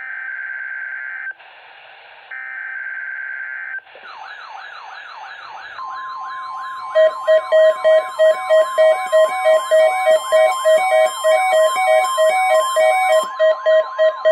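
NOAA Weather Radio Required Weekly Test: three short bursts of buzzy data tones, the coded alert header. Then the weather radio warning alarm, a steady single tone joined from about two seconds later by a wavering siren-like alert. From about three seconds in, rapid even beeps of about three a second are layered over it.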